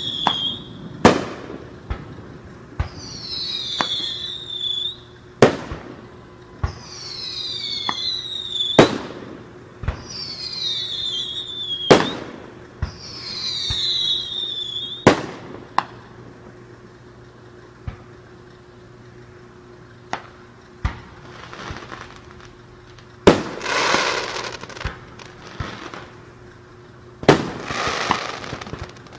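Aerial fireworks: five high whistles, each falling in pitch and cut off by a sharp bang, about every three seconds. In the second half come two louder bangs, each followed by a few seconds of crackling.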